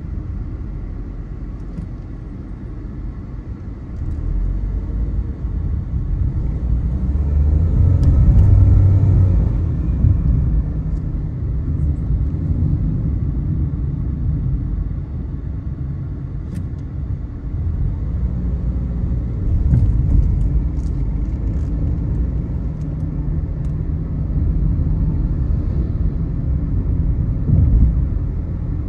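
Car driving along a road: a steady low rumble of engine and tyres, swelling louder about eight to ten seconds in.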